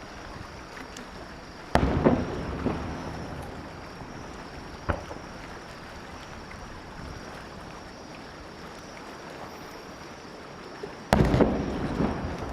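Aerial firework shells bursting: two loud bangs about nine seconds apart, each trailing off with a few smaller cracks, and a single smaller pop between them, over a steady background hiss.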